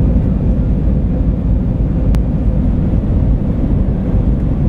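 Steady low rumble and rush of an Airbus A320's engines and airflow, heard inside the passenger cabin during the descent, with a single faint click about two seconds in.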